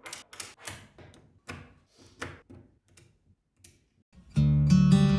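A run of irregular sharp clicks and taps that grow fainter over about four seconds. Acoustic guitar music comes in loudly just past four seconds in.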